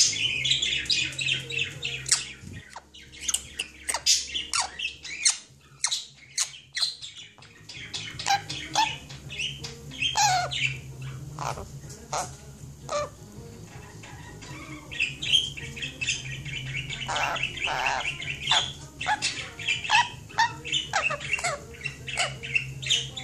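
A sun conure chattering: a long run of short chirps, clicks and squawks, with a quieter gap about six seconds in.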